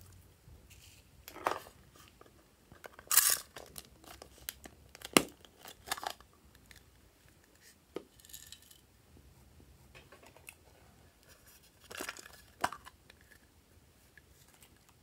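Glossy slime being handled by hand: scattered sticky crackles and pops as it is picked up and pressed down, loudest about three and five seconds in.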